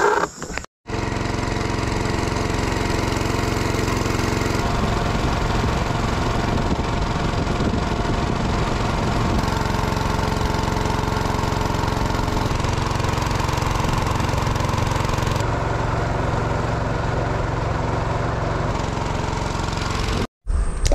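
Small boat engine running steadily under way at constant speed, in several joined clips; it cuts off suddenly near the end.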